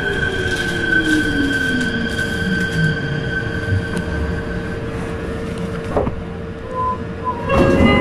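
Meitetsu 4000 series electric train's Mitsubishi IGBT-VVVF inverter whine falling steadily in pitch over the first four seconds as the train brakes into a station, with steady higher tones alongside. A knock comes about six seconds in, and a burst of sound near the end as the train comes to a stop.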